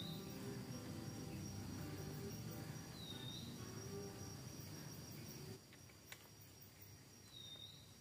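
Forest insects keeping up a steady high-pitched whine, with a short high call that comes twice, about four seconds apart. Under it, a low steady rumble drops away about five and a half seconds in.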